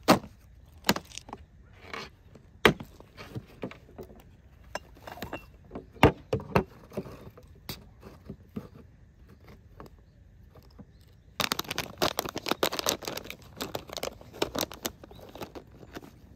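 Camping gear being handled: a few sharp clicks and knocks, then about five seconds of dense rattling and rustling.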